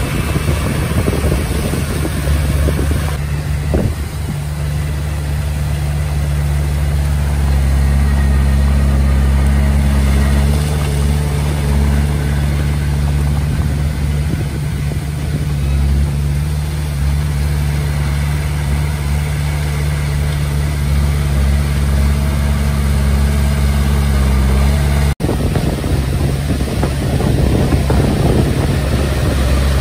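Diesel engine of a Komatsu D20P bulldozer running steadily with a low, even drone. The sound cuts out for an instant near the end, then carries on rougher and noisier.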